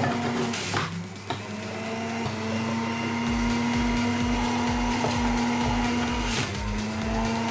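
Moulinex Frutelia centrifugal juicer running with a steady motor hum. Its note dips briefly about a second in and again near the end, and there is a single knock just before the first dip.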